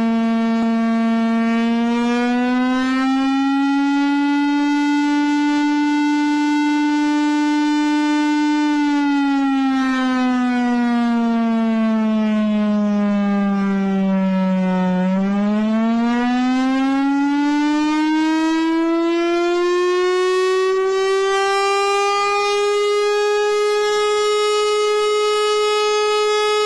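Loud civil-defence air-raid warning siren wailing, the kind to be sounded in a mock air-raid drill. It rises a little and holds, sinks slowly in pitch for several seconds around the middle, then climbs back up to a higher note and holds it near the end.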